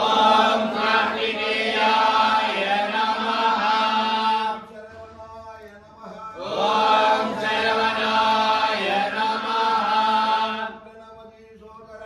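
A group of men chanting mantras in unison in two long, drawn-out phrases. The chant drops to a much quieter voice a little over four seconds in and again near the end.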